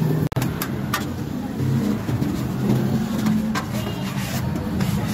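Metal spatula scraping and clinking on a flat steel griddle in several short strokes, over a steady low rumble.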